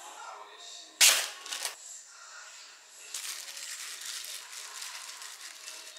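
A sharp knock with a brief scrape about a second in, a wooden spoon against a small glass bowl, then about three seconds of steady crinkling rustle from a thin disposable plastic glove as the gloved hand presses and sprinkles rice into the bowl.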